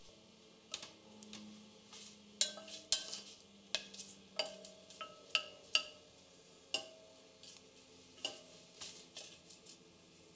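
A wooden spatula stirs whole spices in a little ghee in a stainless steel pressure cooker, scraping and tapping the pot's bottom and sides. There are about a dozen irregular strokes, each leaving a brief metallic ring from the steel pot.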